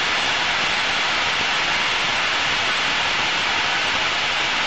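Steady rushing hiss inside the cockpit of an Aero L-39 Albatros jet trainer in flight: its jet engine and the airflow around the canopy, with no change in pitch or level.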